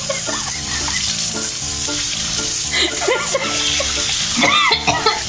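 Water running from a tap into a sink as someone rinses at it, with background music playing over it.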